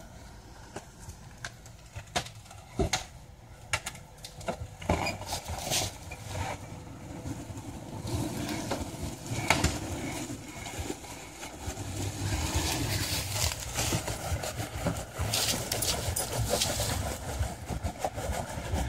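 Off-road rock crawler's engine running low, growing louder from about eight seconds in and again from about twelve seconds, with scattered sharp clicks and knocks.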